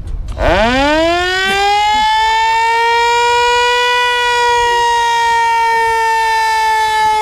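Siren horn mounted on the front of an old military truck, winding up: its pitch climbs fast over about the first second, then holds as a loud, steady civil-defense-style wail that keeps going.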